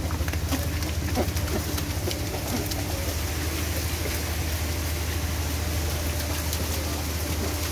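Water splashing and sloshing around the boat and wharf pilings, with scattered small splashes and knocks, over a steady low engine-like drone.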